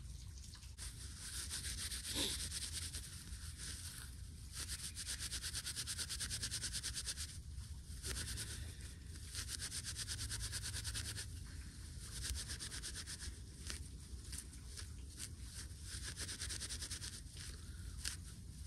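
Dry plant fibres being rubbed and worked between the hands, a fast scratchy rustle of many fine strokes that comes in bouts of a few seconds with brief pauses.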